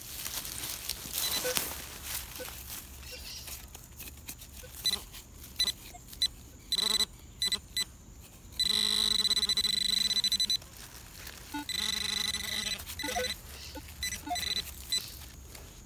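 Handheld pinpointer probing the dig hole, giving short electronic beeps and then a steady buzzing alert of about two seconds, followed by more beeps near the end: the sign that it is close to a buried metal target.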